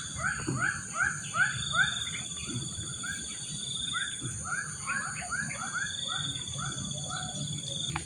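Wild animal calls: short arching notes repeated about three times a second, over a steady high-pitched shrill that comes and goes.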